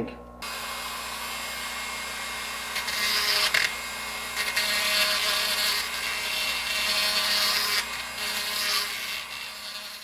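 Dremel rotary tool with a sanding drum whirring at high speed as it grinds down the splayed end of a steel motor shaft, so that the shaft will fit back into its bearing. It starts about half a second in, gets louder and softer as it is pressed to the metal, and winds down near the end.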